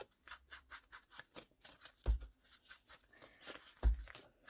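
Ink being rubbed around the edges of paper in quick, repeated scratchy strokes, about four or five a second, with two dull knocks on the table about two seconds in and near the end.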